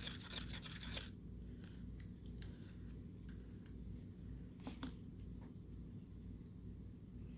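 Faint scratching and light clicks of small tools or cups being handled at a work surface, over a low steady hum. A dense crackly texture stops abruptly about a second in, and a sharper click comes near the middle.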